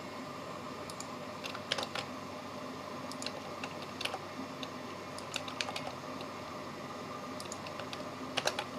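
Computer keyboard keys being pressed for shortcuts: scattered sharp clicks, some in quick pairs and small clusters, over a faint steady hum.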